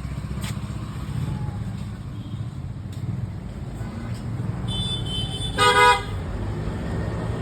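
Steady road-traffic rumble, with a vehicle horn honking once, briefly, about five and a half seconds in, the loudest sound here.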